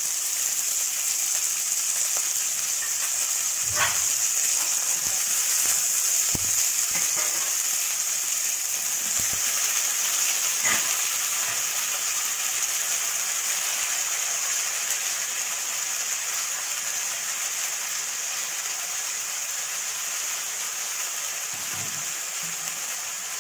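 Chopped brinjal, peas, tomato and fenugreek leaves frying in hot oil in a steel kadhai: a steady sizzle that fades a little near the end, with a few light knocks.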